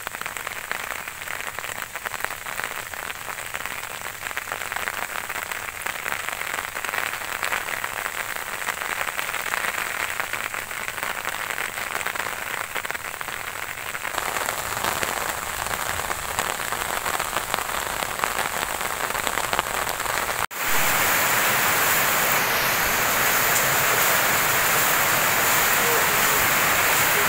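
Steady rain falling on leafy plants and a wet field. After an abrupt cut about two-thirds through, the rain is louder and heavier, falling on corrugated tin roofs and a flooded yard.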